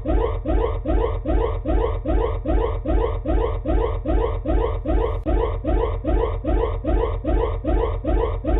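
A siren sounding in short rising whoops, about three a second, in a fast, even rhythm.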